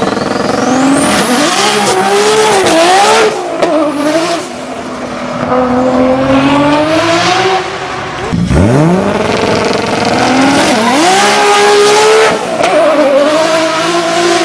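Nissan Skyline GT-R R34 twin-turbo straight-six engines accelerating hard on two separate runs. On each run the engine note climbs steadily and drops sharply at each upshift, and a high whistle climbs over the first couple of seconds.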